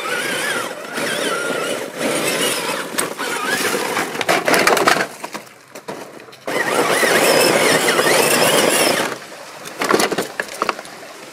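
1/8-scale RC trail crawler's electric motor and drivetrain whining, the pitch wavering with the throttle, over its tyres scraping and crunching on dirt and rock. It stops briefly about five seconds in, then runs again and dies down near the end to a few clicks of stones.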